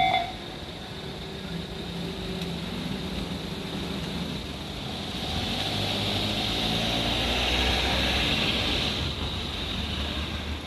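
Level-crossing alarm bells ringing, then cutting off right at the start. After that a vehicle engine's rumble swells to its loudest about eight seconds in and then eases.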